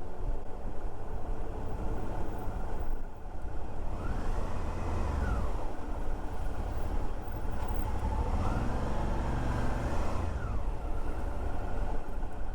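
Suzuki V-Strom 650's V-twin engine, heard from the rider's helmet mic over a steady low rumble, revving up and dropping back twice as the bike accelerates and rolls off.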